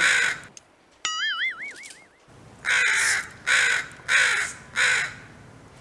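A crow cawing in short harsh calls, one at the start and four more in quick succession in the second half. About a second in, a wavering, warbling whistle-like tone sounds for about a second.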